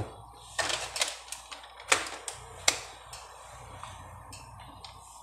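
A quick run of sharp clicks and light knocks, the sound of small kitchen items or the camera being handled, with the loudest clicks about two seconds and nearly three seconds in. After that it settles to a faint low steady hum.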